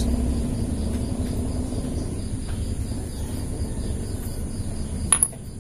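Steady high-pitched insect chirring over a low background rumble, with a brief sharp sound near the end.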